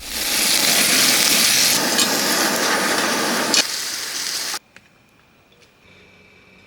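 Food sizzling loudly in a hot pan, a dense crackling hiss that stops abruptly about four and a half seconds in, leaving only faint background sound.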